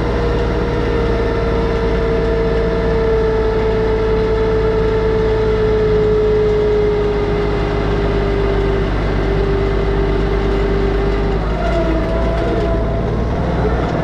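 Branson 2515H compact tractor's diesel engine running steadily, its pitch sinking slowly, with a shift in the engine note near the end.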